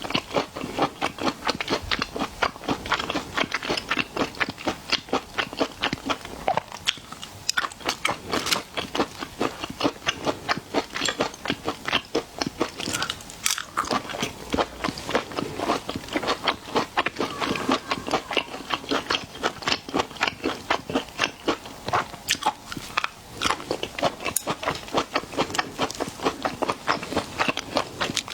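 Close-miked ASMR chewing and biting of seafood: a continuous run of crisp crunches and clicks, several a second, from a person eating.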